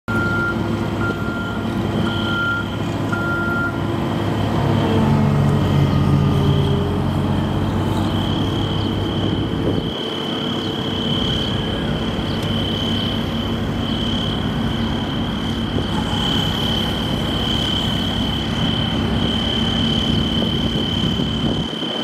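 Vehicle and machinery engines running at a road works site. A reversing alarm beeps about once a second for the first four seconds, and a steady high whine runs throughout.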